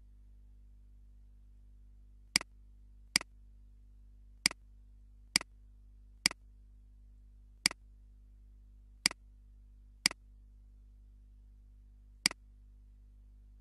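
Nine sharp computer mouse-button clicks at irregular intervals, over a faint steady low hum.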